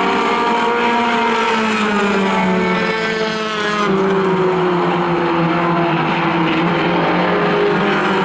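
A pack of four-cylinder compact stock cars racing on a short paved oval. Several engines run at high revs together, their notes rising and falling as the cars take the turns, with a short dip about three seconds in.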